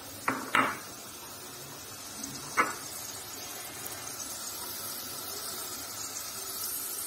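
Sliced onions starting to sizzle softly in hot oil in a stainless steel pot, the hiss growing after about four seconds. Two quick clinks come right at the start and another about two and a half seconds in.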